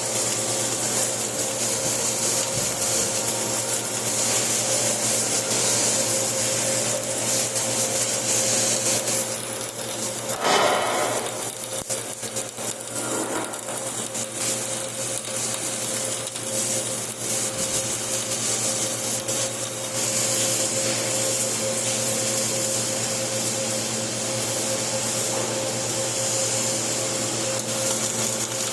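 Flux-cored arc welding: a steady, dense crackle from the arc over the welding machine's hum, with a brief dip about ten seconds in.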